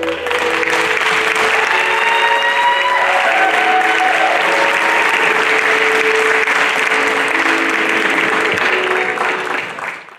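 Audience applauding over the closing bars of the recital music, fading out near the end.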